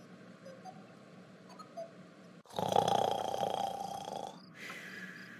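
Snoring sound effect of a sleeping person: one long loud snore about halfway in, then a fainter second breath near the end.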